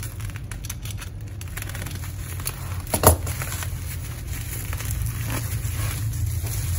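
Plastic bubble wrap crinkling and crackling as it is cut open and pulled off a package, with a run of small crackles in the first second and a half and one louder crack about three seconds in. The rustling grows louder near the end as the wrapped box is lifted.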